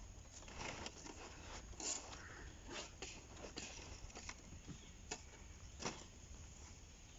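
Faint, irregular clicks and crackles from dry palm fronds being handled and cut into leaf strips.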